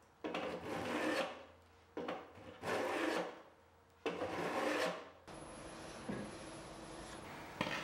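Small block plane shaving the edge of a clamped pine board: several rasping strokes about a second long with short pauses between them, over the first five seconds.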